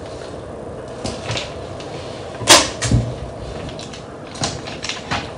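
Paper pattern sheet being handled and folded: a few short papery crackles and rustles, the sharpest about halfway through.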